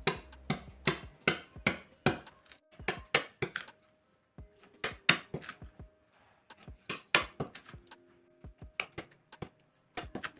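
Sharp knocks of hand-tool work on wood, about two to three strikes a second in runs, breaking off briefly about four seconds in and again near eight seconds in. Faint background music plays underneath.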